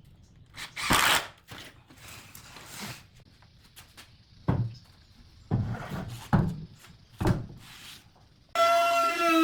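Pieces of wood knocked and handled on a workbench, several separate knocks a second or so apart, then a power tool's motor starts suddenly near the end with a steady whine.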